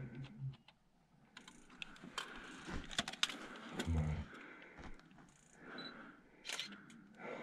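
Faint, scattered clicks and small knocks of a hand-held bridge camera being handled.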